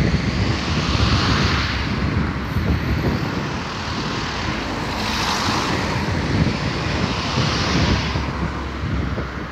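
Wind buffeting the microphone, with a rushing sound that swells and fades three times.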